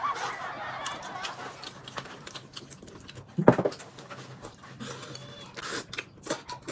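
Mouth sounds of eating noodles from a bowl held to the lips: slurping and chewing, with one loud slurp about three and a half seconds in and a few smaller ones near the end.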